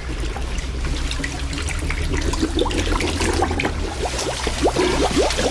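Toilet flushing: water rushing, with bubbling gurgles that grow denser over the last couple of seconds.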